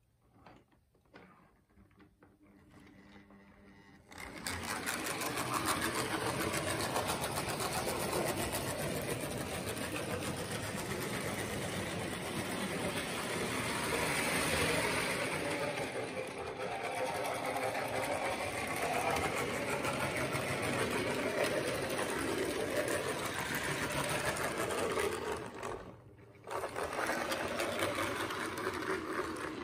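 Jyesa 1005 model diesel locomotive, rebuilt with a modern motor and new bogies, running along the track with a train of freight wagons: a steady whirring and rattling of motor and wheels on the rails. It starts about four seconds in, dips briefly near the end, then carries on. The owner says the rebuilt locomotive runs properly and smoothly.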